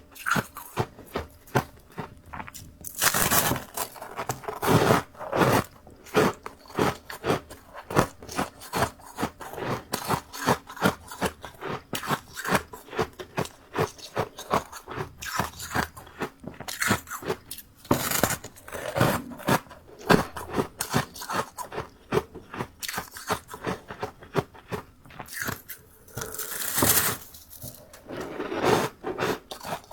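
Close-miked biting and chewing of freezer frost: a rapid run of sharp crunches, with a few longer, louder crunching bites along the way.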